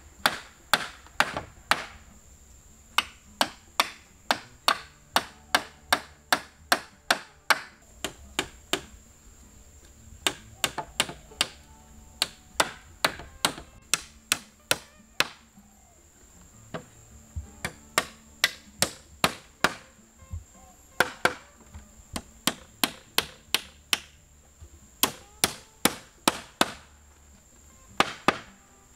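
Wood being chopped: runs of sharp strikes about three a second, broken every few seconds by short pauses.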